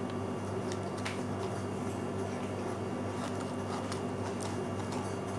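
Faint wet scraping and squishing as a thin knife hollows out the flesh of a small bottle gourd, a few light strokes over a steady low hum.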